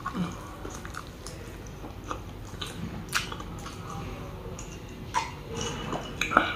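Close-miked chewing and mouth smacks of someone eating braised mutton off the bone, then drinking from a glass, with scattered short clicks and a cluster of sharper ones near the end.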